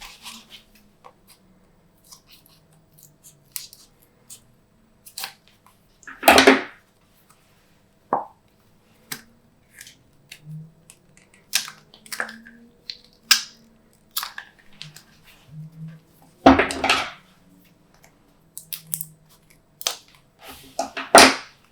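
Glossy slime being handled and mixed: scattered sticky clicks and small pops, with three louder, longer bursts about six, sixteen and twenty-one seconds in.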